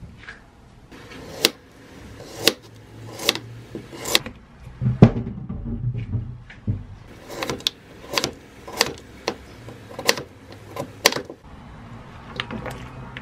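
Kitchen knife cutting through peeled raw potatoes and striking a plastic cutting board, a dozen or so sharp chops at roughly one a second.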